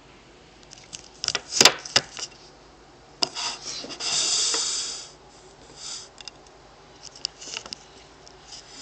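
Clicks and rubbing from handling a plastic Lego fire truck: a sharp click about a second and a half in, a scraping rub lasting about a second near the middle, and scattered light clicks after.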